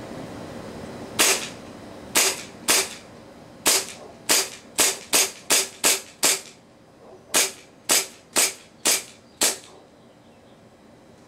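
WE 1911 KB Custom gas blowback airsoft pistol, powered by green gas, firing about fifteen single shots, each a sharp crack as the slide cycles; the shots come quicker in the middle, with a short pause about seven seconds in, until the magazine is emptied. Very loud.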